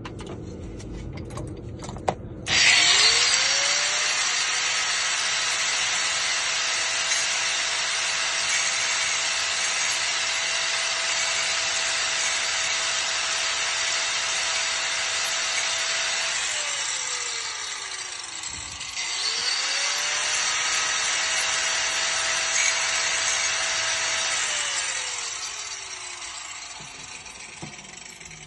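Small high-speed power grinder shaving down the sidebar of an ignition lock cylinder until it is flush, so any key will turn the lock. The motor spins up with a rising whine and grinds steadily for about fourteen seconds, then winds down. It starts again for a second, shorter pass of about five seconds and winds down once more.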